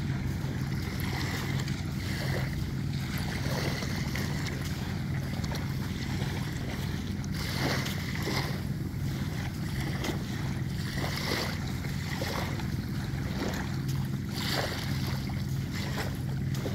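Wind and small surf on an open sandy beach: a steady rushing noise with a constant low hum underneath and a few brief swells of noise.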